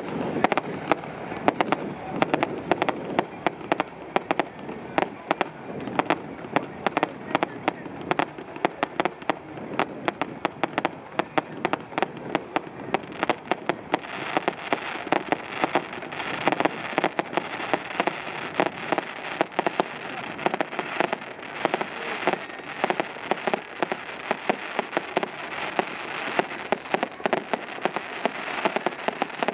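Fireworks display: a dense, continuous barrage of bangs and crackles from bursting shells and ground fountains, growing fuller and busier from about halfway.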